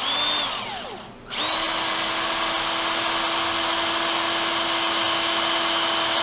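Cordless drill boring into a tray of frozen macaroni and cheese. A short run winds down in pitch within the first second; the drill starts again about a second and a half in and runs at a steady speed.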